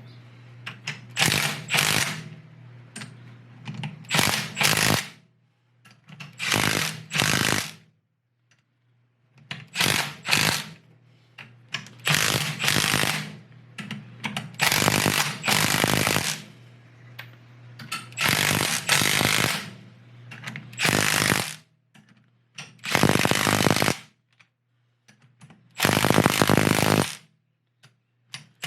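Impact wrench hammering in short bursts, mostly two at a time with pauses between, running in the ring gear bolts that draw the new ring gear onto a Yukon Dura Grip differential carrier. A steady low hum runs underneath until about three quarters of the way through; the last two bursts are longer.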